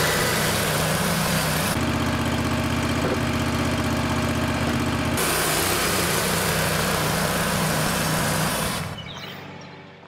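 Wood-Mizer LX150 portable bandsaw mill running, its engine driving the band blade through a log. The sound is steady, changes in tone about two seconds in and again about five seconds in, and fades out near the end.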